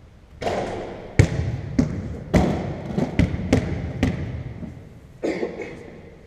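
Basketballs bouncing on a wooden sports-hall floor: about nine irregular thuds, each echoing and fading in the hall.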